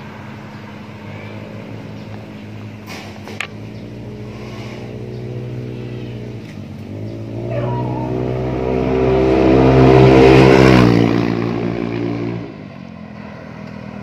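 Yamaha XMAX300 scooter's single-cylinder engine through a PR2 aftermarket exhaust, passing on the road: a low engine hum, then the exhaust note grows louder and climbs in pitch from about halfway through, peaks, and drops away suddenly near the end.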